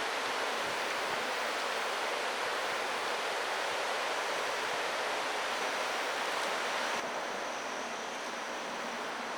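Steady rushing noise of a train running along the track, with no distinct clicks or horn; it eases slightly about seven seconds in.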